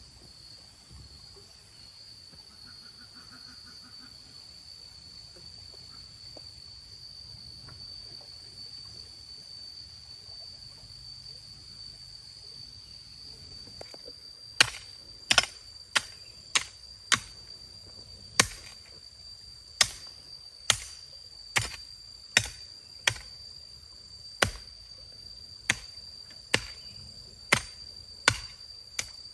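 Sharp chopping strikes, about one a second, starting about halfway through. Under them a steady high-pitched insect drone.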